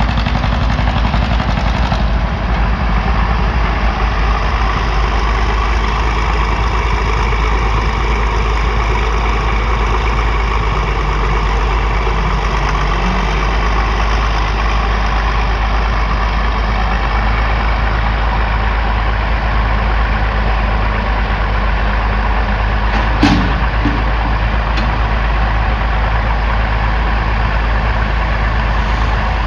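Engine running steadily at idle, with one sharp click about two-thirds of the way through.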